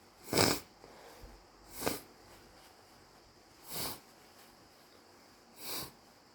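A person sniffing sharply through the nose four times, each sniff a little fainter than the one before, between sneezes that the uploader suspects are an allergy.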